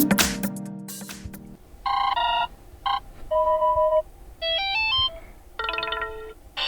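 HOTWAV T5 Pro smartphone system ringtones playing. One electronic-music ringtone fades out in the first second and a half. Then a ringtone of short electronic beeps plays: a quick pair of notes, a single blip, a held two-tone note, a fast rising run of notes and a closing chord.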